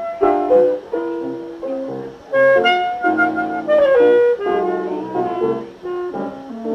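Instrumental background music: a melody of held notes over chords.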